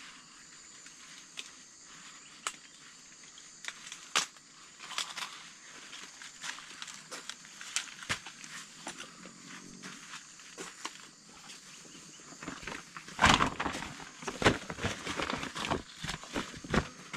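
Mustard green leaves and stalks being picked by hand: scattered snaps and rustles, then a run of louder snapping and crunching from about thirteen seconds in.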